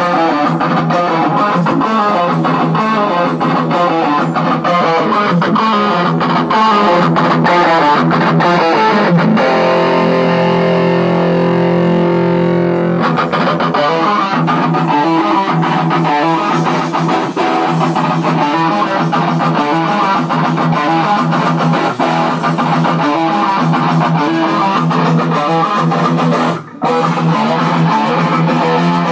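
Custom Steinberger electric guitar being played: a steady run of quickly picked notes, a chord held and left ringing for about three seconds around ten seconds in, and a brief stop just before the end.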